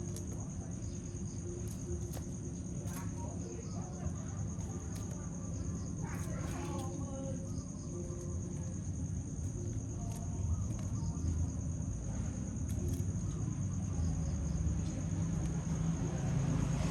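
A steady, high-pitched insect trill runs over a constant low rumble.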